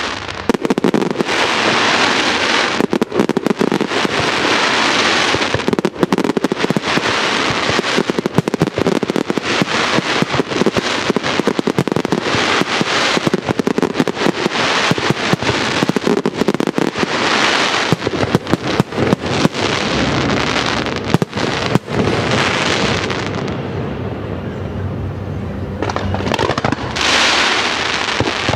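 Fireworks display in full barrage: rapid, dense bangs of bursting shells over continuous crackling, swelling and fading every second or two, with a brief thinner stretch near the end.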